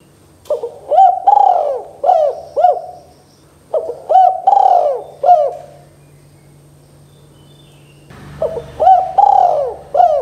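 Spotted dove cooing: three phrases of several short, rising-and-falling coos each, with a pause between the second and third.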